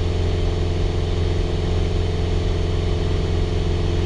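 Lycoming O-320 four-cylinder engine and propeller of a Piper PA-28-161 Warrior running steadily at climb power, heard inside the cockpit as an even drone.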